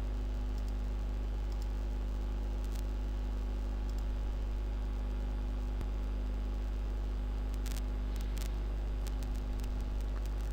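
Steady low electrical hum with a faint hiss, the background noise of a desktop screen-recording setup. A few faint mouse clicks sound over it, a small cluster of them about eight seconds in.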